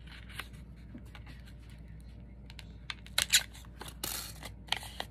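The wire end of a rusty paper clip poking and scratching holes into scrap paper: scattered small clicks and paper crinkles, with a cluster of louder ones about three seconds in and a short scrape just after four.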